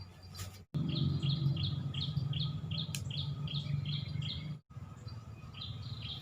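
A bird calling a short, high chirp over and over, about three notes a second, over a steady low hum. The sound cuts out sharply twice.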